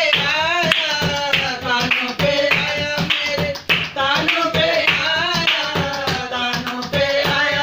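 A woman singing a Hindi folk song, with hand claps keeping a steady beat.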